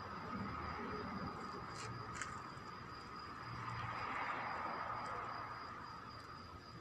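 Steady night-time outdoor background: a low hum and hiss with a thin, steady high tone, and two faint ticks about two seconds in.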